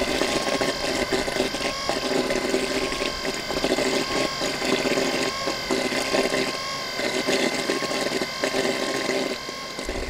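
Engine-driven site machinery running steadily, with a constant whine over an uneven churning.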